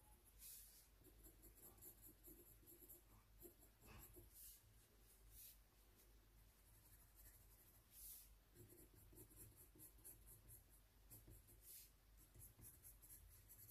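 Faint scratching of a colored pencil shading on paper in quick, irregular strokes.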